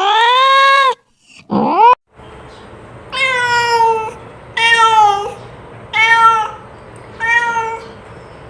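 Domestic cat meowing over and over: one call ends about a second in, a short rising call follows, then four meows a little over a second apart.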